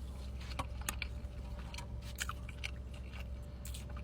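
Close-miked chewing of a bacon burger: irregular soft clicks and wet mouth sounds, over a low steady hum.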